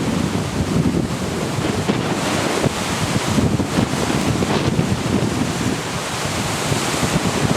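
Strong storm wind buffeting the microphone in uneven gusts, over the wash of rough, wind-driven waves.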